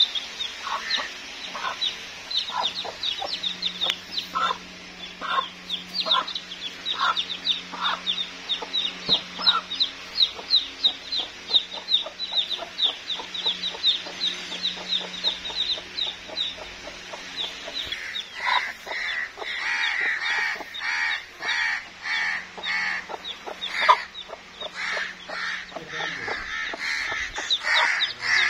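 Domestic chicks peeping rapidly in a steady stream of short, high, falling notes, with a hen clucking among them. About two-thirds of the way in the hen's calls turn louder and come in quick, close runs.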